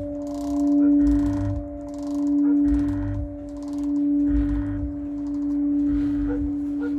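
Medium church bell swinging without clear clapper strikes. Its hum holds one steady pitch and swells and fades about every second and a half as the bell swings, with a soft rush at each swing.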